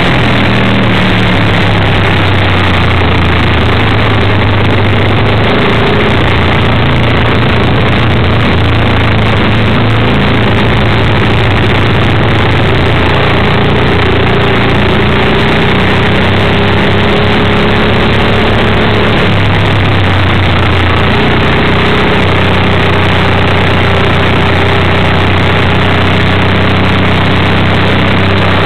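A vintage flat-track racing motorcycle's engine, heard loud and close from a camera mounted on the bike, running hard around the dirt oval with its note stepping up and down as the throttle is worked through the turns, over a steady rush of wind noise.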